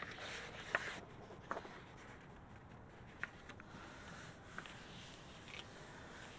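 A sheet of paper laid onto a gel printing plate and rubbed down by hand: a soft rustle as the paper goes down in the first second, then faint brushing of palms over the paper with a few light ticks.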